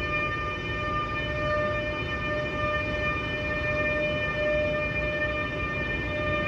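A steady, high-pitched whine with overtones, holding one pitch over a low rumble.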